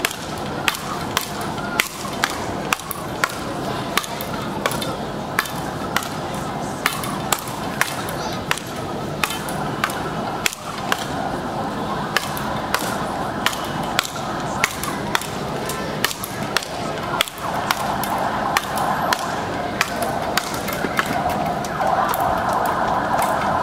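Speedball paddles striking the ball tethered to the pole in a fast rally: sharp cracks at about two hits a second, kept up without a break.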